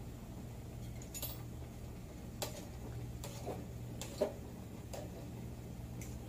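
Scattered light clicks and metal taps, about six of them, from a fork against an aluminium pot of boiling baby potatoes, over a steady low hum.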